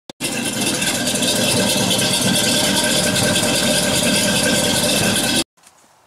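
A loud engine running steadily at an even pitch, cutting off abruptly about five and a half seconds in.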